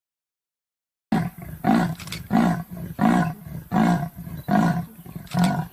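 A large wild animal gives a rhythmic series of about six loud, deep calls, roughly one every 0.7 s, starting about a second in.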